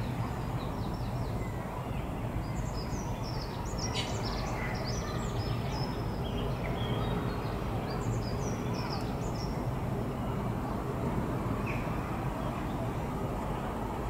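Small birds chirping in short, high, quick notes, scattered through the middle, over a steady low background rumble.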